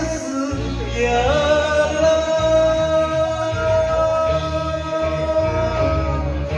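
A man singing a Japanese enka song into a karaoke microphone over the backing track with a steady low beat. About a second in he slides up to one long held note that ends near the end.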